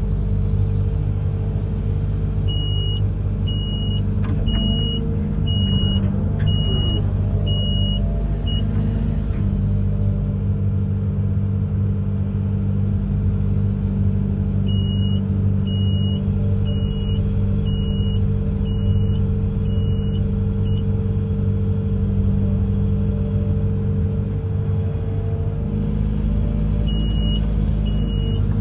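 Amphibious excavator's diesel engine running steadily, with its warning beeper sounding in runs of about seven high beeps each, a little over one beep a second, three times.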